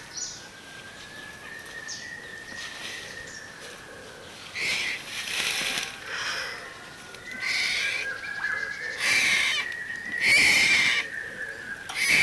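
Ten-day-old Bengal tiger cub calling: about five high, wheezy mewing contact cries, starting about four seconds in and growing louder, over a steady high-pitched tone.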